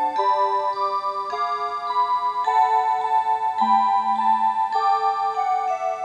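SEIKO QBT-30 bell timer's built-in electronic chime, from its Hi-Fi tone generator, playing a melody. Sustained synthesized notes change about every half second to second, with several notes sounding together, and each note pulses with a fast tremolo.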